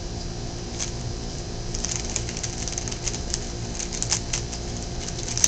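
Plastic Rubik's Cube being twisted quickly by hand: quick, irregular clicks of the layers turning, a few at first and then several a second from about two seconds in.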